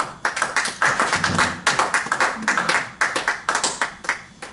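Small audience applauding: a spatter of separate hand claps that starts suddenly and dies away about four seconds later.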